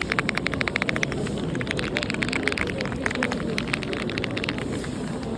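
Keyboard keys being typed rapidly, a fast clatter of key clicks that thins to a few presses after about four seconds, over a murmur of crowd voices.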